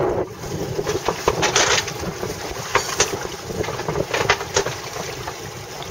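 Wind buffeting the microphone over choppy open water, with a steady wash of water noise and a few sharp slaps and knocks.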